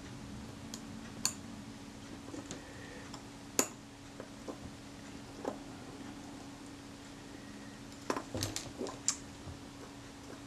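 Small sharp metallic clicks and taps of steel tweezers against the tiny parts of a camera leaf-shutter mechanism as a spring is worked into place: a few scattered clicks, then a small cluster a little past the middle, over a steady low hum.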